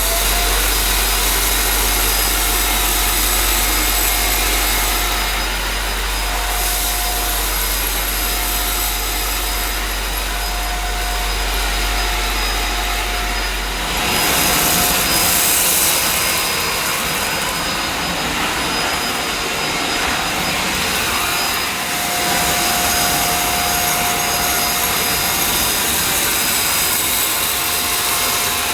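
EGL 600-watt handheld mains vacuum cleaner running with a steady motor whine, sucking up loose dirt from a hard kitchen floor. About halfway through, a low hum drops out and the airflow sound turns rougher.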